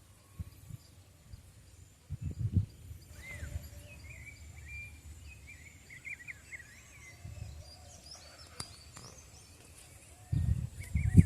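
Several wild birds chirping and calling in short warbling phrases, busiest in the middle stretch. Low thumps and rumbles of handling or steps on the microphone come briefly about two seconds in and again near the end, the loudest sounds here.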